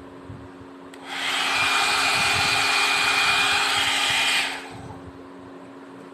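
Kemey KM-6830 hair dryer blowing: a loud rush of air with a high whine in it starts about a second in, runs steadily for about three and a half seconds, then winds down. A faint steady hum runs underneath.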